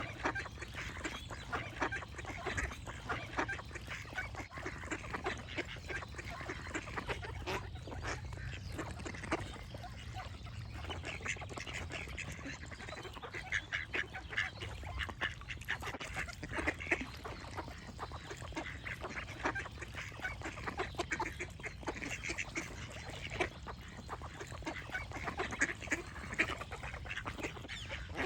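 A flock of ducks quacking and chattering, many short calls overlapping in quick succession, with a low steady rumble underneath.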